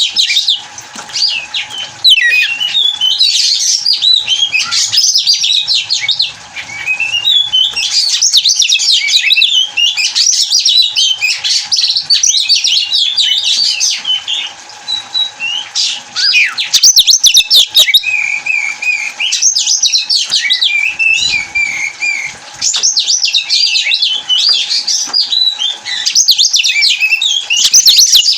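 Oriental magpie-robin (kacer) singing a loud, fast, varied song of rapidly changing whistled notes, in phrases broken by short pauses.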